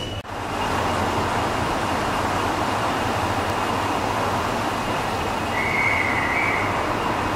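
1923 Metropolitan Railway electric locomotive No 12 beside the platform, giving a steady mechanical rumble and hiss, with a brief high-pitched squeal about six seconds in.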